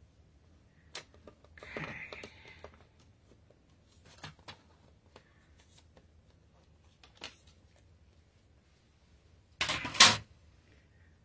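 Paper trimmer cutting a cardstock strip: a click as the blade is set, then a short swish of the blade sliding through the paper about two seconds in. A few light clicks follow, and a louder clatter of handling near the end.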